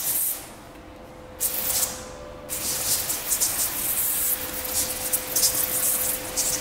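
Hand-held trigger spray nozzle on a hose hissing as it mists liquid onto window tint film on glass: a short burst at the start, another from about a second and a half in, then near-continuous spraying from about two and a half seconds in.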